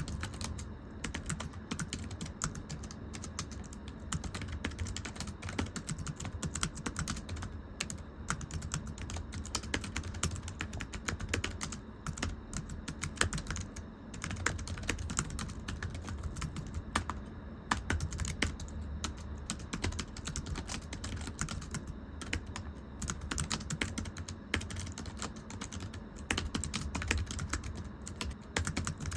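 Fast, continuous typing on a very thin, low-profile computer keyboard: light, flat tapping keystrokes in quick runs with brief pauses, over a steady low hum.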